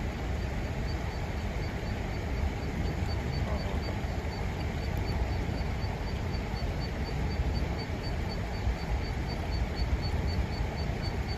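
Outdoor river ambience: a steady low rumble like wind and moving water on the microphone, with a faint, high, regular ticking about four times a second.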